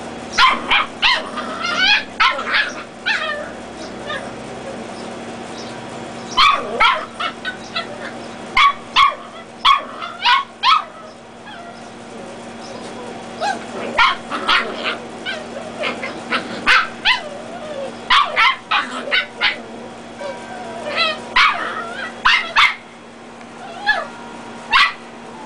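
Dachshund puppies yipping and barking while play-fighting. The calls are short and high-pitched and come in quick clusters of several, with brief pauses between.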